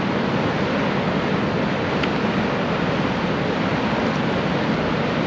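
Steady rushing hiss of flowing creek water.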